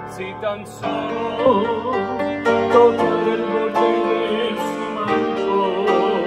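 Grand piano played in slow sustained chords, with a man's voice singing a melody with vibrato over it from about a second in.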